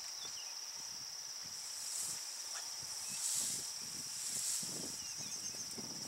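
Insects chirring steadily in a high-pitched band that swells a few times, with soft rustling and tearing of grass as an African elephant feeds close by.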